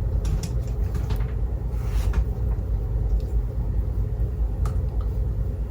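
A steady low rumble, with a few faint light clicks over it.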